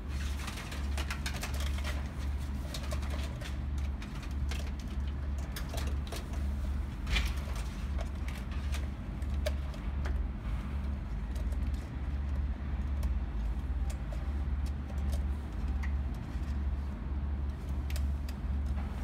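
Hands handling and routing electrical wire through a car's engine bay: scattered clicks and rustles of cable and plastic, thickest in the first half, over a low pulsing rumble.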